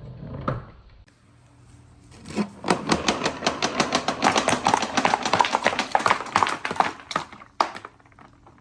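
Marbles rolling and clacking along a wooden marble run: a rapid rattle of many small clicks starting about two seconds in and stopping abruptly, followed by two or three single clacks.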